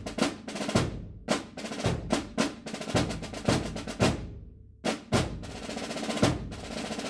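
Music with a fast, busy drum beat that drops out briefly about four and a half seconds in, then comes back.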